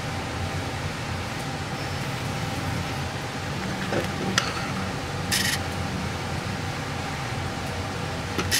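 Steady hiss and low hum of room noise, with short handling rustles and scrapes about four and five seconds in and again near the end as a plastic toilet fill valve and a paper measuring tape are moved about on a wooden table.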